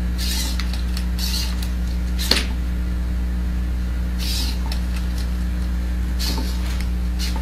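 The servo motors of an Arduino-driven delta robot arm whir in short high-pitched bursts as the arm moves, with one sharp click about two seconds in, over a steady low hum.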